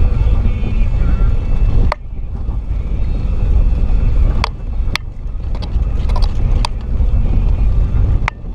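2006 Jeep Liberty (KJ) driving slowly over a rough dirt trail: a steady low rumble of engine and tyres, with several sharp knocks and clacks as it goes over bumps.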